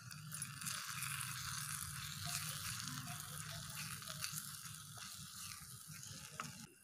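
Onions, garlic and spices frying in oil in a miniature clay pot, a steady sizzle while being stirred with a wooden spoon; it stops suddenly near the end.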